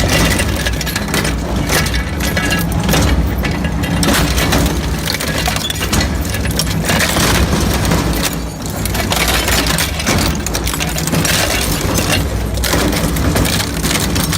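A heavy crushing machine running with a steady low hum while material cracks and breaks apart in it continuously.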